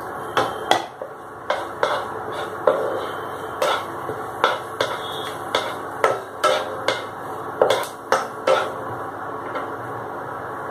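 Wooden spatula knocking and scraping against a kadai while stirring cumin and bay leaves frying in oil: about fifteen sharp, irregular knocks over a steady hiss.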